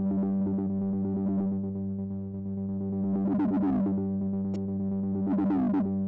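Korg ARP ODYSSEi software synth holding a steady low drone while its tone is swept by a knob sending MIDI CC 71. The resonant sweep rises and falls through the upper overtones twice, around the middle and again near the end.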